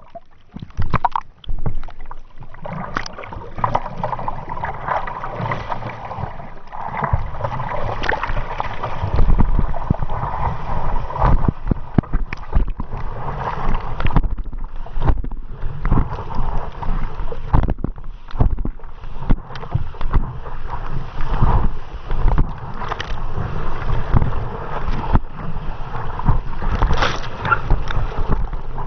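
Water rushing and splashing during a ride on an ocean wave, with wind buffeting the microphone and irregular knocks and surges throughout.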